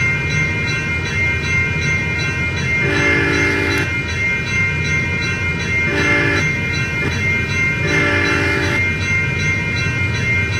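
Train horn sounding three blasts, long, short, long, over the steady rumble of a passing train.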